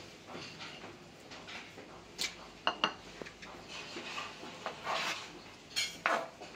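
Kitchen handling sounds: a few sharp clinks of utensils and dishes over a low rustle, with a clustered pair about two and a half seconds in and more near the end.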